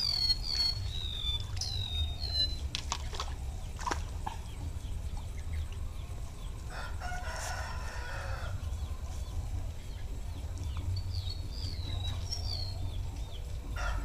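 A rooster crowing once, about halfway through, with high chirps of small birds near the start and again near the end. A low steady rumble runs underneath.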